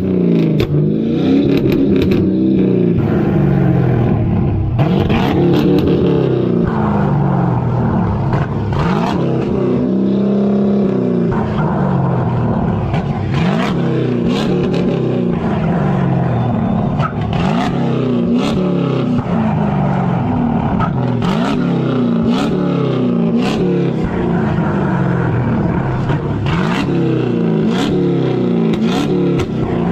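A car engine revving hard over and over, each rev climbing in pitch and dropping back about once a second, with a hiss of noise higher up, during a burnout.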